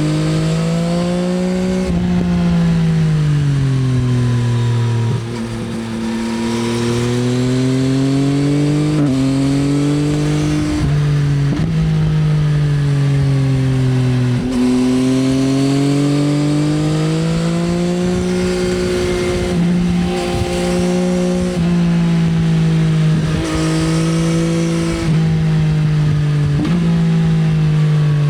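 Yamaha XSR900's CP3 three-cylinder engine through an Akrapovič Racing Line exhaust, ridden on and off the throttle. The note rises and falls continuously, with about ten sudden jumps in pitch as it shifts gear.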